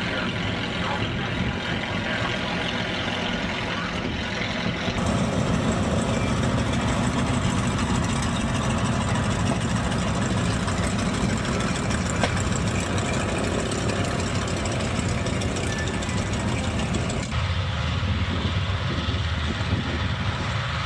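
An engine idling steadily. The sound changes abruptly about five seconds in and again near the end.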